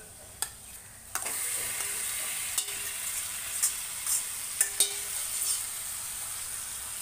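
Marinated chicken pieces sizzling as they land in hot butter and oil with fried onions in a kadai: the sizzle starts about a second in and then runs steadily. A steel spoon clinks and scrapes against the bowl and pan a handful of times as the chicken is scraped in.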